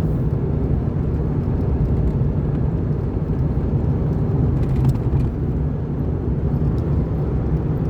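Car driving on the road, heard from inside the cabin: a steady low rumble of tyres and engine. A brief click about five seconds in.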